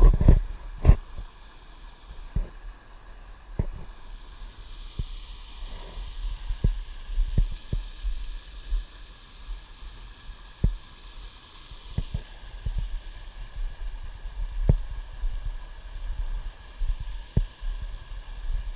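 Irregular soft thumps and knocks over a low rumble, with a faint hiss in the middle stretch.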